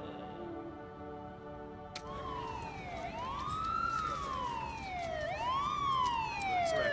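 Held music chords fade out. About two seconds in, an emergency vehicle siren starts wailing, rising and falling slowly in pitch over a low rumble.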